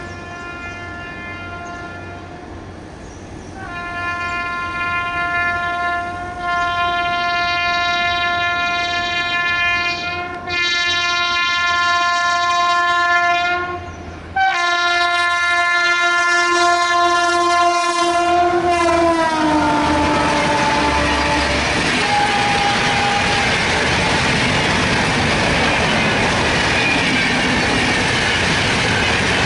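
WAP7 electric locomotive's air horn sounding: faint at first, then three long loud blasts with brief breaks, the last dropping in pitch as the locomotive passes at speed. The rush and wheel clatter of the express coaches going by follows.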